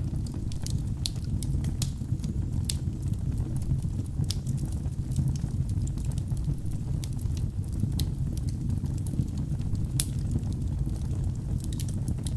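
Wood logs burning in a fireplace: a steady low rumble of flames with frequent, irregular sharp crackles and pops.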